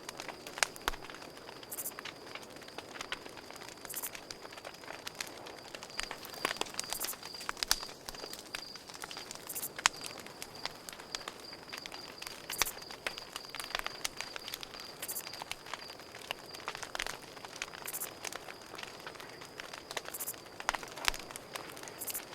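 Campfire crackling, with irregular sharp pops of burning wood, over a cricket chirping in a steady, rapid high trill.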